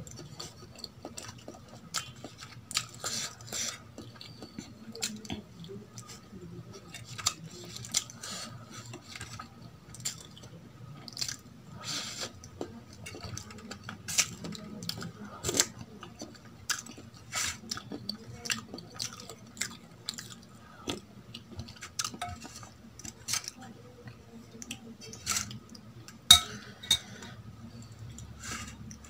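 Close-miked eating sounds: a steel spoon clinking in a stainless steel bowl of sambar and wet mouth sounds of chewing soft idli, as many irregular sharp clicks and smacks, the loudest a little before the end. A low steady hum runs beneath.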